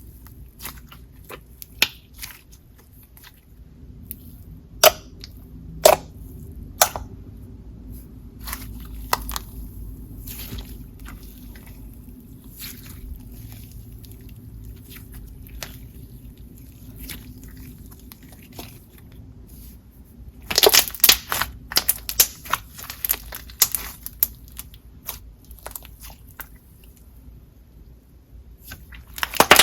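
Float slime with a pink icee slime layer under clear slime being poked and mixed by hand: scattered crisp crackles and pops, with a dense run of crunchy crackling about two-thirds through and another near the end.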